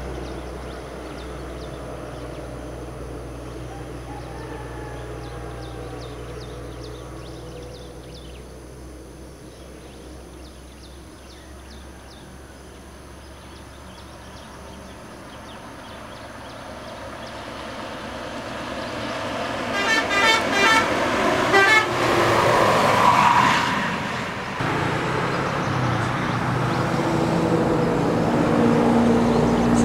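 Intercity bus coming up the road and passing close: its engine and tyre noise builds slowly, it sounds a quick run of horn toots about twenty seconds in, then goes by loudest with a falling sweep of tyre noise. Another heavy vehicle's engine grows louder near the end.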